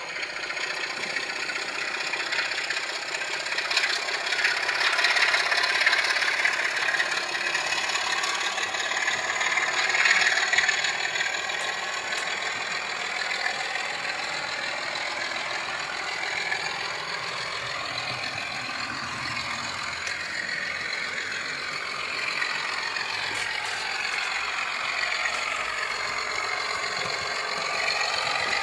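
Diesel engine sound from a sound-fitted model locomotive, running with a rattle. It is louder in the first half, and its pitch rises and falls as the engine revs in the second half.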